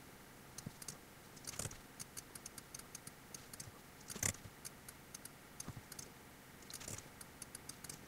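Faint, irregular clicking and tapping of a computer mouse and keyboard during editing work, with a few louder clusters of clicks.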